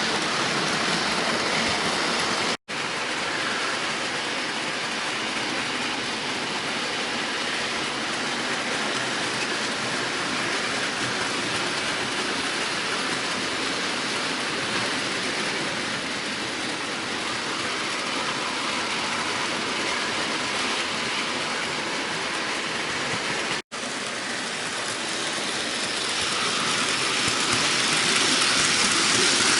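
HO scale model train (a Bachmann Paxton diesel locomotive pulling a Toad brake van) running around the track: a steady rolling noise of wheels on the rails and the small electric motor, growing louder near the end. The sound cuts out for an instant twice.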